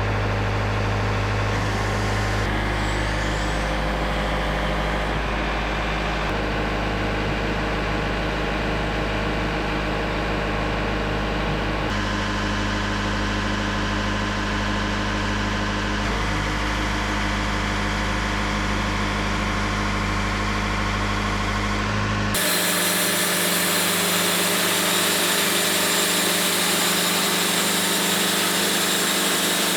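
Wood-Mizer LT70 Super Wide sawmill's diesel engine running steadily just after being started, with a deep even hum. About 22 seconds in, the sound changes abruptly: the low hum drops away and a brighter, hissier running sound takes over.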